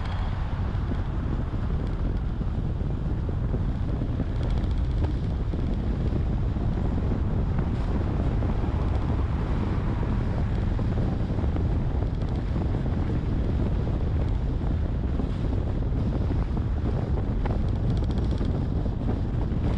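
Steady low rumble of wind and road noise from a car driving along a road, buffeting the microphone.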